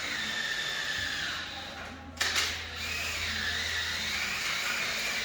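Motor-driven chimney-cleaning equipment running steadily, a low hum with a whirr above it, with a sudden louder knock a little after two seconds in.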